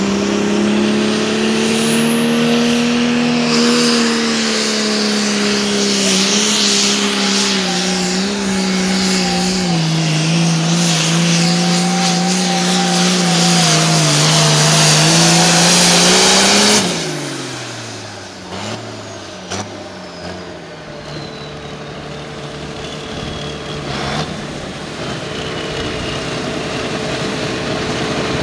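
Hot Farm pulling tractor's turbocharged diesel engine running hard under load down the pull track, its pitch wavering, then backing off abruptly about 17 seconds in. After that it runs at a much lower level, with a high whine slowly falling in pitch.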